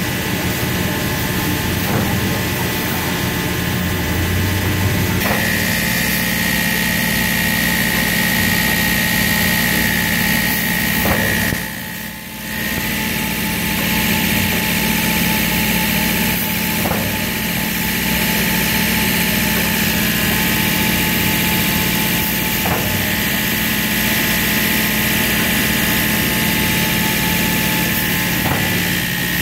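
Toilet paper converting machinery running: a loud, steady factory drone with a high whine and a low hum, and a faint click about every six seconds. The noise drops away briefly about halfway through.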